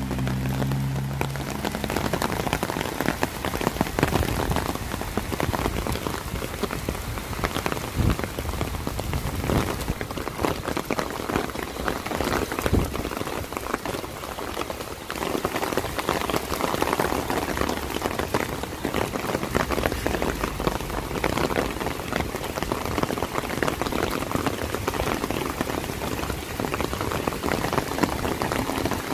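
Steady rain falling on a wet street, with a dense, close patter of drops striking an umbrella overhead.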